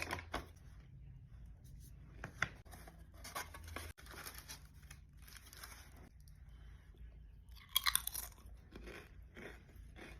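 A person chewing crunchy food close to the microphone: irregular crunches and chews, with a loud cluster of crunches about eight seconds in.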